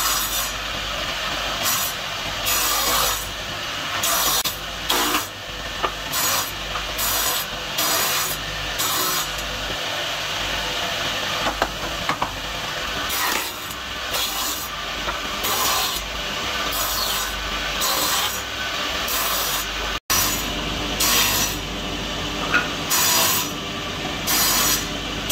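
A bench-mounted power tool running with a steady hum while wooden box pieces are pushed against it, each pass a short rasp of about half a second, repeated many times.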